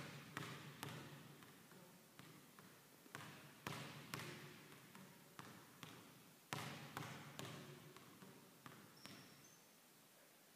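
A basketball being dribbled on a hardwood gym floor, each bounce echoing in the hall. The bounces come at an uneven pace, some harder than others, and stop near the end.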